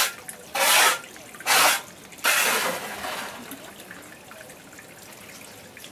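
Floodwater on a house floor splashing in short swishes about a second apart, then a longer splash about two seconds in that trails off into a low wash.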